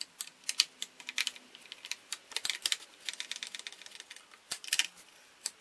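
Hand-turned T27 Torx screwdriver tightening the recoil starter cover screws on a Stihl chainsaw, giving irregular light clicks and ticks, some in quick clusters.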